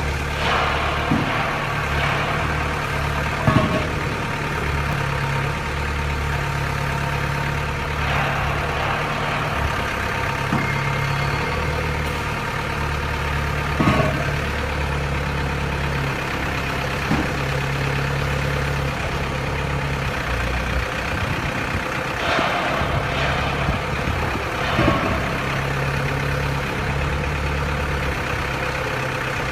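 Mini pile driver's engine running steadily with a deep drone, and a few separate sharp clanks, the loudest about three and a half seconds and fourteen seconds in.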